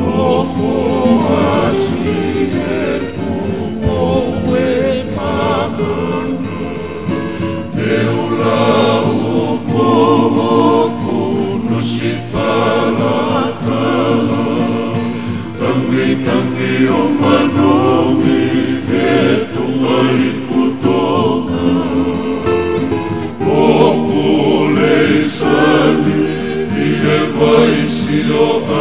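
Tongan kava-club (faikava) song: a group of men singing together in harmony to strummed acoustic guitars.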